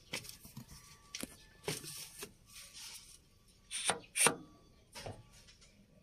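Scattered metal clicks and knocks with brief scraping, from parts and tools being handled while the cover plate of a dump truck's hydraulic tipping control valve is worked loose; the two loudest knocks come a little past halfway.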